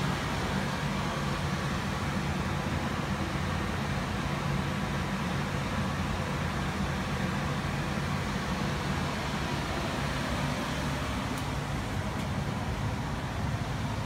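1990s Heil gas furnace running, its blower fan giving a steady low hum with a rush of air. The owner says the blower was not spinning fast enough.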